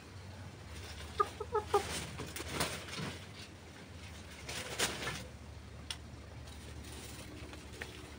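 White broiler chicken clucking, a quick run of about five short clucks about a second in, followed by two brief scratchy rustles of dry leaves as it pecks at the ground.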